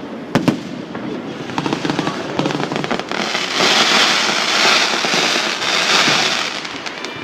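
Fireworks: two sharp bangs about half a second in, then a dense crackling shower that swells for a few seconds and fades.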